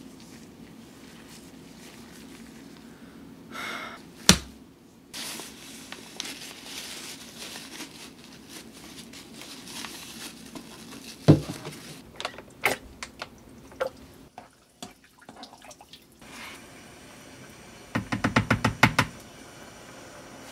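Kitchen handling sounds: a few sharp knocks and clicks, then near the end a rapid run of about eight taps in a second, a wooden spoon knocked against the rim of a pot to drop a piece of sweet potato gnocchi dough into the water.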